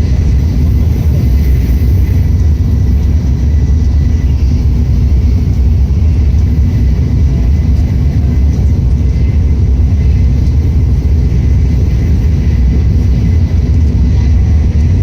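Tokaido Shinkansen train running at speed, heard from inside the passenger cabin: a loud, steady low rumble with a faint high tone held above it.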